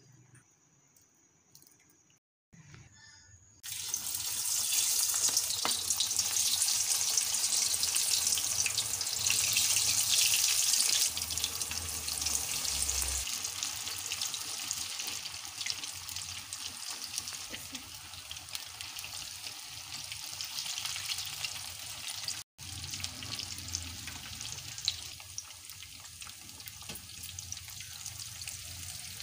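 Coated chicken pieces deep-frying in hot oil in a pan: a loud, steady sizzle with crackling that starts suddenly about three and a half seconds in, after a short near-silence. It is loudest for the first several seconds, then settles a little quieter.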